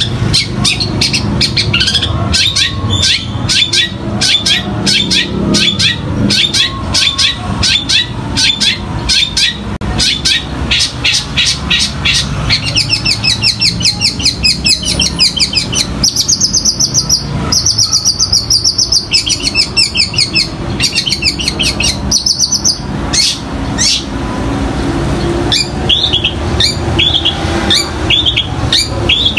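Long-tailed shrike (cendet) singing: a rapid run of sharp chirps, several a second, breaking into fast high trills about halfway, then slower separate chirps, mimicking the calls of fighting sparrows.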